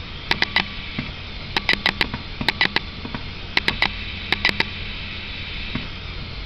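Hot air welding machine running: a steady blower hum and hiss, broken by quick groups of three or four sharp clicks about once a second while fabric is fed under its roller.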